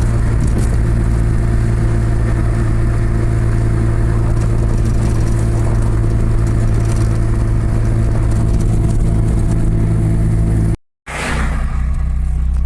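Motor vehicle's engine running at a steady speed with road noise. It cuts off abruptly for a split second about 11 seconds in, then resumes.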